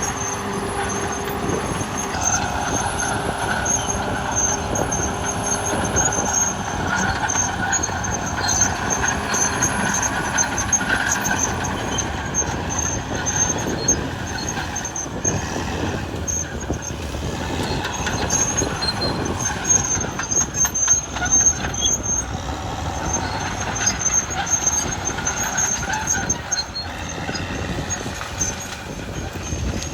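Caterpillar D6R XL bulldozer working: its diesel engine runs under load while the steel tracks clank and squeal.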